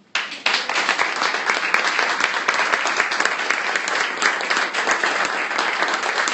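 Audience applause: a room full of people clapping, breaking out suddenly and going on steadily.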